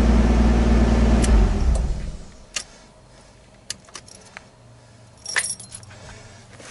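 Car ignition being switched on and off in a Nissan Skyline R32 GTS-T's cabin. A loud, low, steady hum runs for about two seconds and dies away, then comes a run of sharp clicks and the jingle of keys hanging in the ignition.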